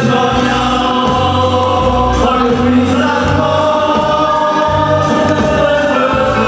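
Background music with a choir singing long held notes over a steady bass.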